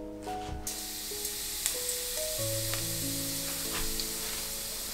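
Cumin seeds sizzling in hot oil in a kadai, the steady hiss starting about half a second in as the seeds hit the oil. This is the first tempering of a curry; the oil has been heated first.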